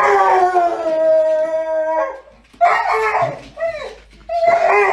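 A dog letting out a loud, long scream-like howl that slides slightly down in pitch, then a shorter wavering cry, and after a pause a third loud cry near the end. It is demanding its ball.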